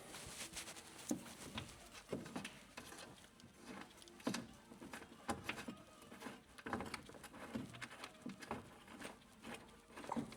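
Light, irregular taps and clicks of hand tools and parts being handled during coilover removal.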